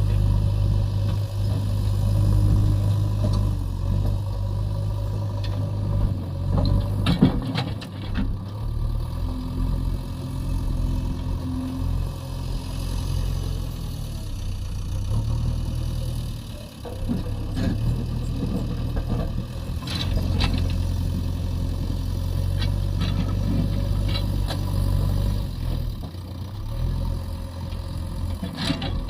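JCB 3DX backhoe loader's diesel engine running under changing load, with a few scattered clanks and scrapes as the machine works.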